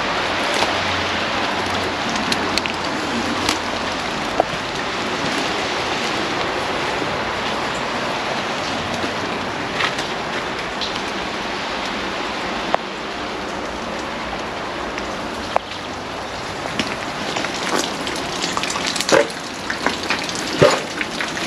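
Steady rain falling, with scattered close drops ticking on surfaces. Sharp taps and knocks come more often near the end.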